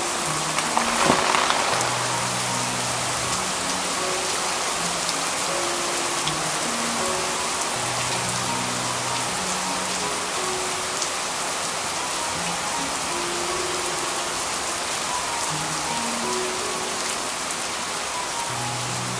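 Steady rain falling on surfaces, with a brief louder swell about a second in. Soft background music of slow, held notes plays over the rain.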